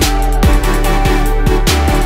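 Electronic background music with a steady beat of deep bass kicks that fall in pitch, about two a second.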